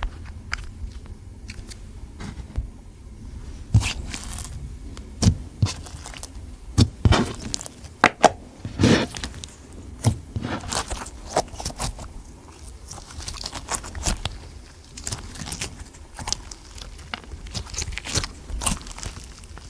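Slime being worked by hand, giving irregular sticky clicks, pops and crackles, busiest in the middle stretch.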